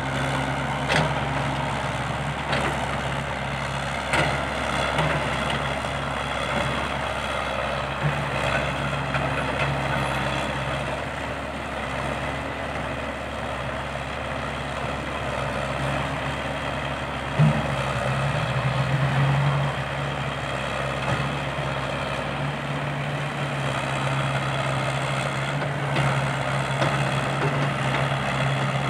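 A small Komatsu crawler excavator's diesel engine running steadily while it digs and swings, with a dump truck's engine also running. A few sharp knocks come through, the loudest about two-thirds of the way through, and the engine hum swells shortly after.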